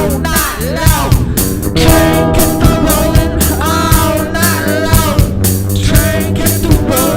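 Rock band music: bending guitar or vocal lines over bass and drums with a steady beat.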